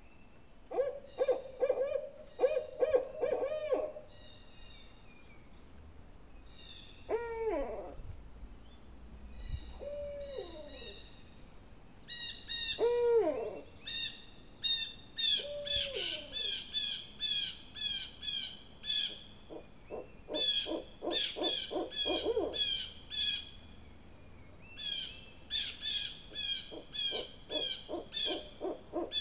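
Barred owl calls. There are rapid runs of hoots and several drawn-out hoots that slide down in pitch. Through the second half, rapid runs of higher, sharper calls repeat over and between them.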